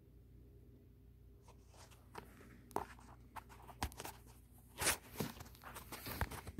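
Three-week-old kittens scuffling as they play-fight on a fabric blanket: an irregular run of scratchy rustles and sharp scrapes that begins about a second and a half in. There are no meows.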